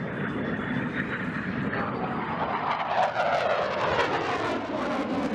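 F-22 Raptor fighter jet engines running at high power, a steady jet noise. A thin whine rises in pitch over the first two seconds, and a falling sweep in pitch comes about three seconds in.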